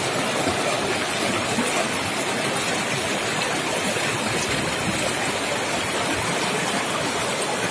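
Shallow river rapids: water rushing and splashing over boulders close to the microphone, a steady even rush.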